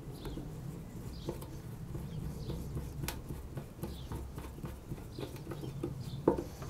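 A hand screwdriver turns a screw down into the motorcycle's tank fitting, giving a few faint scattered clicks and scrapes. Birds call faintly in the background.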